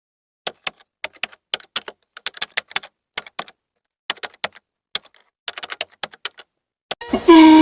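A series of sharp clicks, irregular in pace, some single and some in quick runs of three or four, with brief pauses between. Near the end a loud pitched animal call begins.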